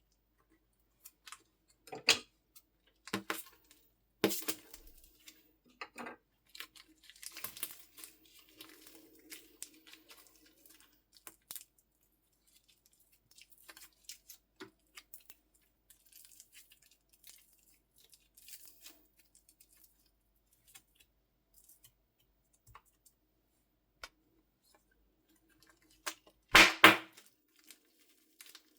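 Slime and soft clay being squeezed, stretched and mixed by hand: sticky pops, crackles and tearing sounds in separate bursts with quiet gaps, the loudest cluster of pops near the end.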